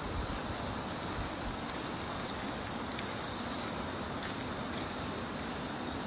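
Steady outdoor background noise, an even hiss with no distinct events, with a brief low rumble in the first moment.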